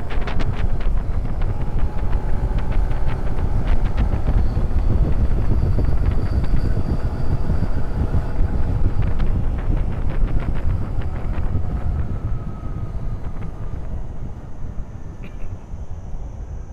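Motorcycle at road speed: the engine runs under heavy wind noise buffeting the microphone, with sharp ticks. The whole sound dies down over the last few seconds as the bike slows.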